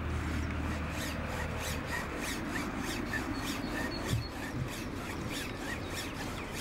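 Fly line being pulled by hand through a fly rod's guides, a quick rhythmic rasping stroke after stroke.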